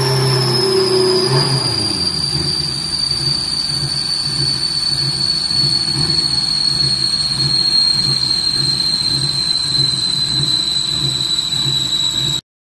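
Subaru Impreza drag car on a chassis dyno coasting down after a run. The engine note drops away about a second and a half in, leaving a high whine that falls slowly in pitch as the rollers and drivetrain spin down, over a low pulsing about twice a second. The sound cuts off abruptly near the end.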